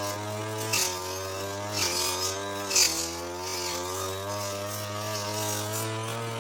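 Engine of a brush cutter (grass-cutting machine) running at high speed, its pitch sagging briefly three times in the first half with sharp swishing bursts as the blade bites into thick grass, then running steadily.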